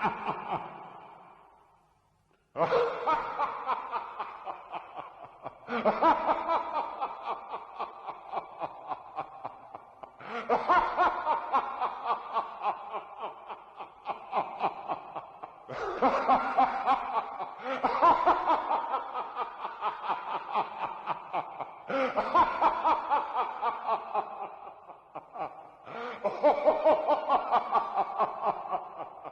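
Evil-laugh sound effects: a string of sinister, villain-style laughs, one after another. Each is a run of rapid 'ha-ha-ha' pulses, about three a second, that trails off before the next begins sharply. There is a short silence about two seconds in.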